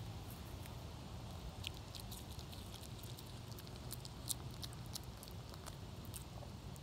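Chihuahua chewing a bean: a run of quick, irregular clicks from its mouth, starting about one and a half seconds in and stopping shortly before the end.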